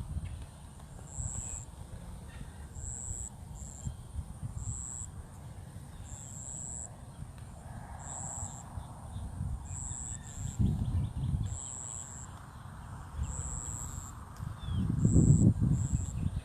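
Wind buffeting the microphone in gusts, the strongest about ten seconds in and again near the end, over a high-pitched insect call pulsing about once a second and faint birdsong.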